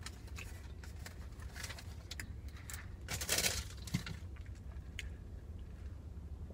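Sipping a drink through a straw from a plastic cup: faint clicks and rustles of the cup being handled, with a short slurp about three seconds in, over a low steady hum.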